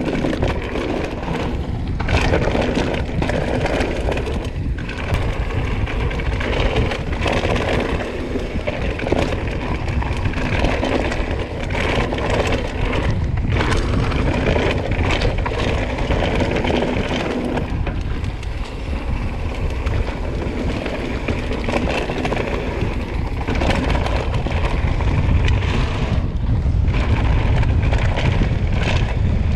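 Propain Tyee enduro mountain bike riding down a dry dirt trail: tyres rolling over the ground with wind on the action camera's microphone, and frequent knocks and rattles from the bike over bumps.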